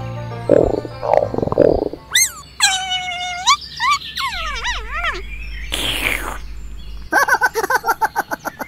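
Cartoon sound effects and gibberish character noises: a few short dense blips, then high calls that glide up and down in pitch, a short whoosh about six seconds in, and fast chattering near the end.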